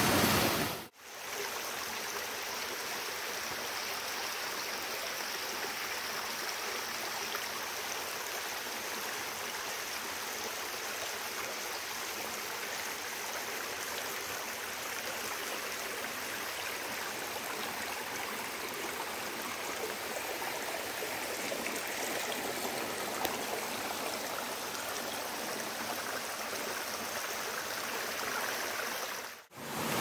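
Shallow stream running over stones and leaf litter: a steady rush of water. The sound drops out briefly about a second in and again near the end.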